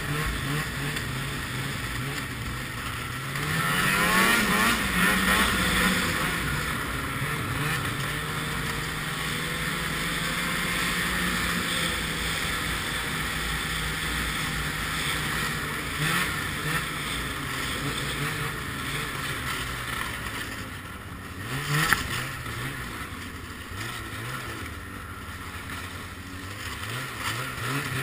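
Ski-Doo snowmobile engine running while riding, heard from the rider's seat. The revs rise about three seconds in and then hold steady at cruising speed, with wind noise. There is one sharp knock about three quarters of the way through.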